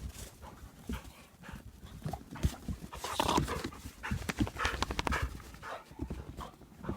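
Dogs panting and moving through deep fresh snow, with irregular crunching steps.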